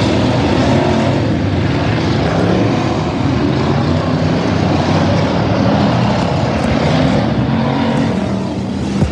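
Several stock-class race cars' engines running hard at once on a dirt figure-8 track, a loud, steady blend of engine noise, with a brief knock near the end.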